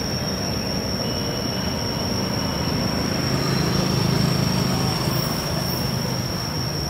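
Steady rumbling background noise that swells a little around the middle, with a constant high-pitched whine running over it.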